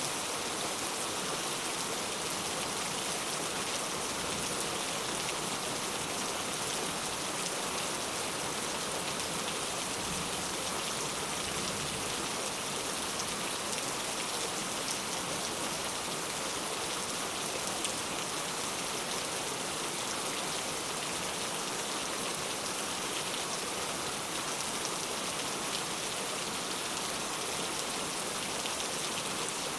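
Steady rain falling, an even hiss with scattered drop ticks and no thunder.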